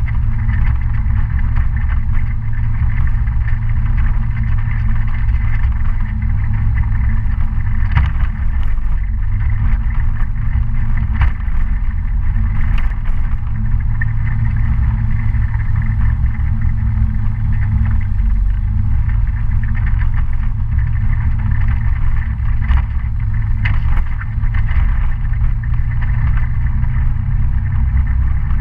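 Citycom S 300i scooter's single-cylinder engine running steadily while riding a dirt road, with a loud constant low rumble and a few short sharp clicks or knocks scattered through the ride.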